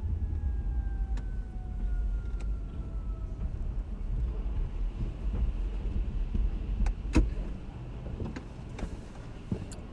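A car creeping forward into a car wash tunnel, heard from inside the cabin: a steady low rumble with a few sharp clicks and a louder knock about seven seconds in. Two faint tones slide slowly downward in the first few seconds.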